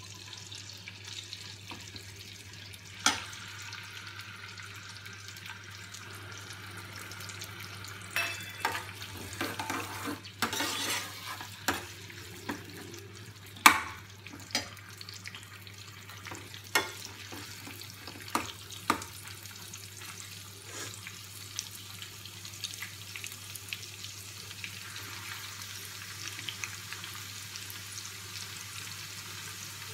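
Long-cut ginger and green chillies sizzling in hot ghee, stirred with a steel ladle that knocks against the pan now and then, the loudest knock about 14 seconds in.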